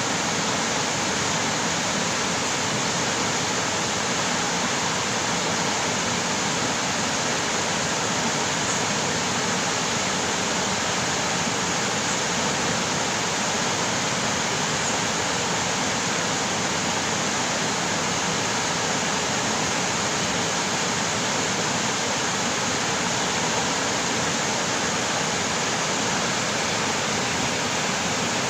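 Water of a small creek flowing steadily, an even rushing with no change in level.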